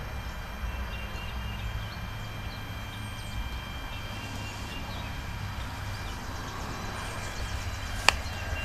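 Outdoor ambience: a steady low rumble with faint high chirps, and a single sharp click about eight seconds in.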